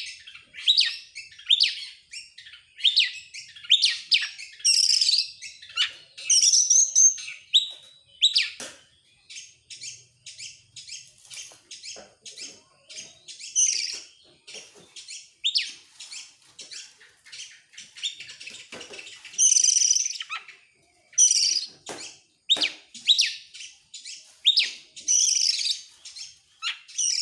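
Oriental magpie-robin singing a fast, unbroken song of sharp chirps and whistled notes, in rapid-fire phrases.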